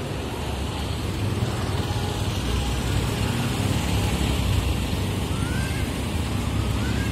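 Steady rumble of road traffic from a nearby street.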